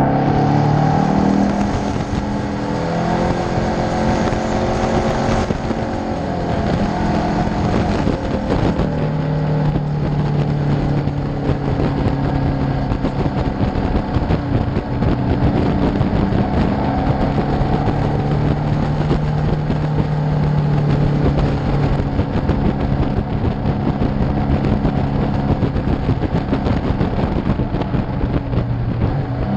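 Motorcycle engine running while riding at speed, its pitch shifting up and down with throttle and gears, over a steady rush of wind on a camera mounted by the front fork.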